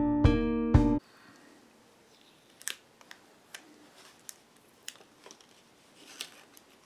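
Loud music with repeated plucked notes cuts off abruptly about a second in. After that come faint, scattered sharp clicks and light taps: small laptop parts being handled and fitted together.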